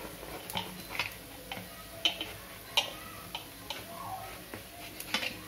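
Knife clicking against a plate as it cuts a thin besan flatbread into small pieces: short, sharp ticks at an uneven pace, about two a second.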